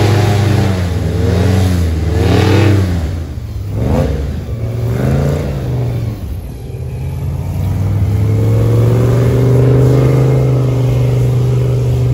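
Airboat engine and propeller revving hard several times as the boat powers up onto its trailer, then running at a steady higher speed.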